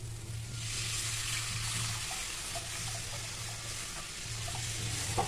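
Thin gram-flour and sour-curd kadhi batter being poured from a steel bowl into a hot kadai of oil and turmeric. A steady pouring, splashing hiss starts about half a second in.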